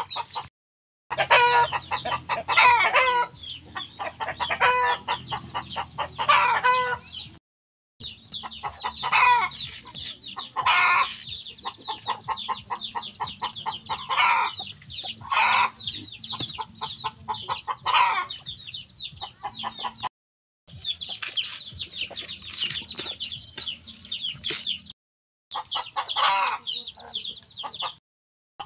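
Domestic chickens calling: loud clucks and several crowing calls recur every few seconds over a constant, rapid high-pitched cheeping. The sound drops out completely for a moment a few times.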